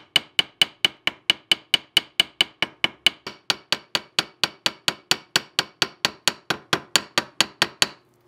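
A small hammer taps rapidly and evenly on a metal pin set in an antler knife handle, about four strikes a second, peening the pin's end into a dome. Each tap rings briefly at first. The ring fades partway through, and the tapping stops just before the end.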